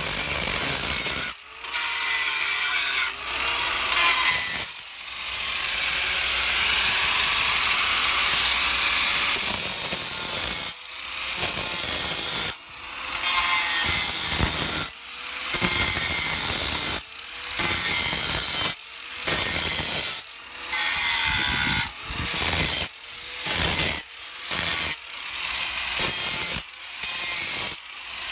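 Ryobi angle grinder cutting V-grooves into a granite stone. One long unbroken cut a few seconds in, then a series of short strokes roughly one a second as the disc bites in and lifts off, the motor pitch dipping under load.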